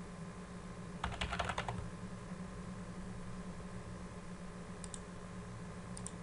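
Typing on a computer keyboard: a quick run of keystrokes about a second in, then two faint clicks later on, over a steady low electrical hum.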